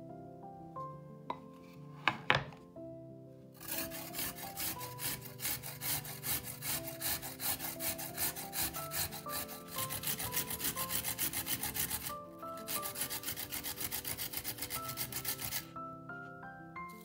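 A carrot being grated, steady rasping strokes about four a second with one short pause, after two sharp knocks about two seconds in. Soft mallet-instrument background music plays throughout.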